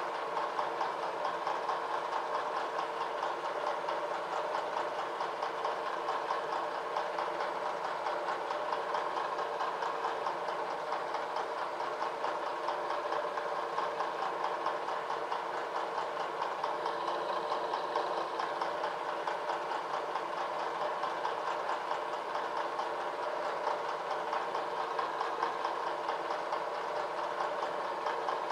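A long end mill cutting metal on a vertical milling machine as the table moves along on power feed. It makes a steady machine hum with a fast, even chatter from the cutter's teeth.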